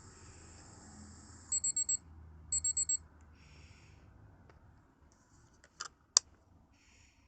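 Capsule-toy miniature microwave oven sounding its electronic finish signal: two quick runs of four high beeps, like a real microwave's end-of-cooking alert. Near the end come two sharp plastic clicks, the second one loud.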